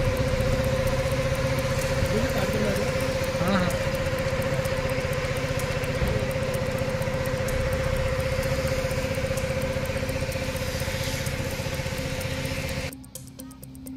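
An engine running steadily with a constant whine held over it; it cuts off about a second before the end.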